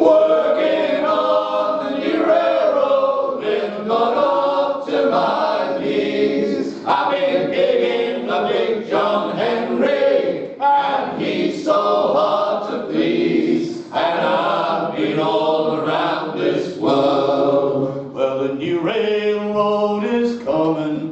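A group of men singing a traditional folk song together in unaccompanied harmony.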